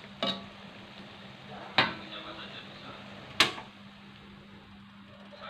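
Metal spatula clanking against a wok three times while stir-frying vegetables, over a faint sizzle that thins after the last clank, about three and a half seconds in, as the spatula is left in the wok.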